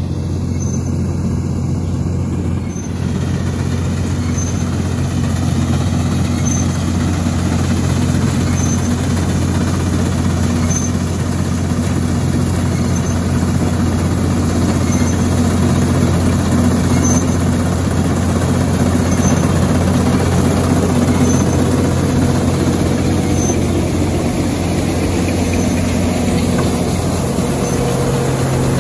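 Combine harvester's diesel engine and machinery running steadily under load, a constant deep hum with rushing noise over it.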